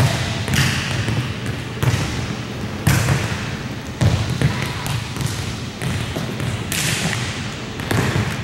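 Volleyballs being hit and bouncing on a hardwood gym floor: irregular sharp smacks about once a second, each echoing through the gym.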